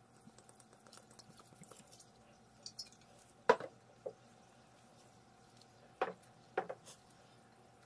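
A wooden paddle stirring thick gochujang (chili paste) in a large stainless steel bowl: faint wet sounds at first, then a few sudden sharp wet slaps, the loudest about three and a half seconds in and a cluster of three about six to seven seconds in.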